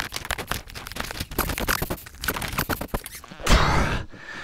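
Dry leaves and dirt crunching and rustling as a fallen dirt bike is dragged and hauled upright by hand, a rapid run of crackles with a louder rustling rush about three and a half seconds in.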